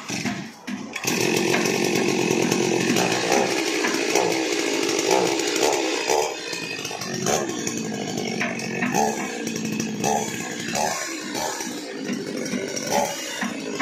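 Stihl two-stroke chainsaw being pull-started on the ground, catching about a second in after a couple of pulls of the cord. It then runs loud and steady, settling a little lower about six seconds in.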